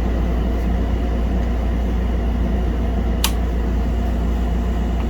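Steady low mechanical hum, with one sharp click about three seconds in.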